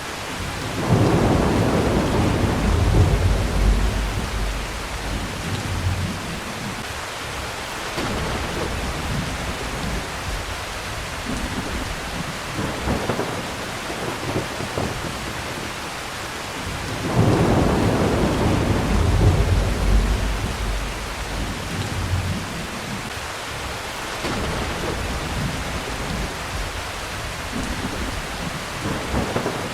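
Steady heavy rain with two long rolls of thunder, one starting about a second in and another just past halfway, each rumbling for several seconds.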